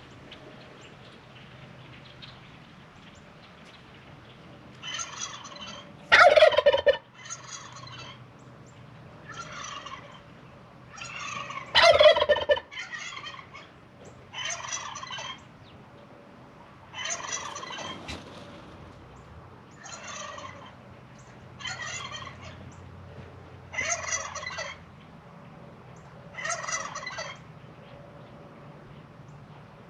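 Domestic turkey toms gobbling again and again, about a dozen rattling gobbles one to three seconds apart. The two near six and twelve seconds in are much louder than the rest.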